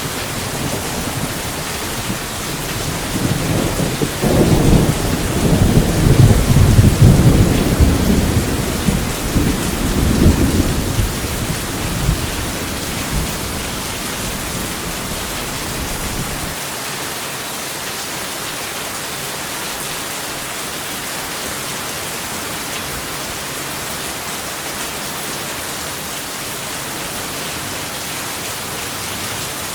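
Steady heavy rain hissing throughout, with a long rolling thunder rumble. The thunder builds a few seconds in, is loudest about a third of the way through, and dies away before halfway, leaving only the rain.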